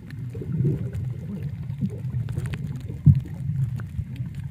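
Swimmers' kicks and bubbles heard underwater through a submerged camera: a muffled, low wash of moving water with scattered faint ticks and one sharp knock about three seconds in.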